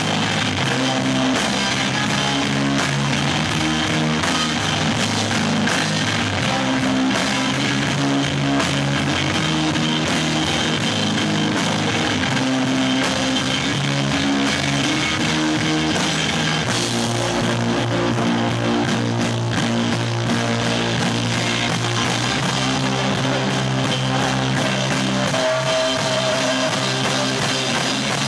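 Live rock band playing: electric guitar over a drum kit, loud and continuous.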